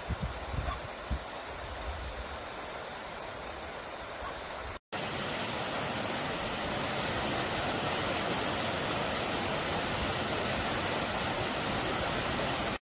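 A shallow rocky mountain stream burbling, with low gusts of wind bumping the microphone. About five seconds in, after a brief dropout, the sound switches to the steady, louder rush of a small waterfall cascading over rocks, which cuts off just before the end.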